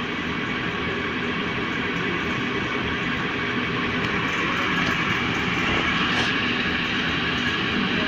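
Steady machine hum that keeps on evenly, with no starts, stops or strokes.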